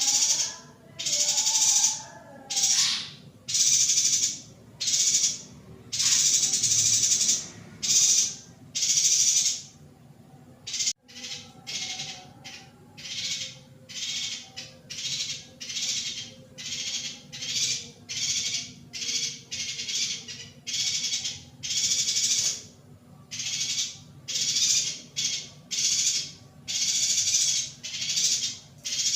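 Female yuhina calling over and over: a fast run of short, buzzy, raspy chirps. A click about eleven seconds in, after which the chirps come shorter and quicker.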